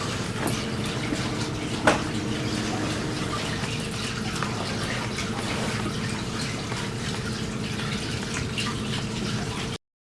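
Indoor wall fountain: water flowing and trickling steadily over a faint low hum, with one sharp click about two seconds in. The sound cuts off abruptly near the end.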